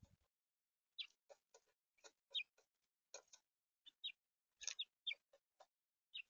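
House finches at a seed feeder giving a quick run of short chirps, several dipping in pitch, about a dozen over four seconds starting about a second in. A brief low thump comes at the very start.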